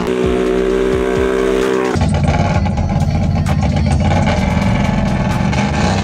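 Quad ATV engines running and revving at a dirt drag-race start line. About two seconds in the sound changes to a deeper, rougher running of engines close by.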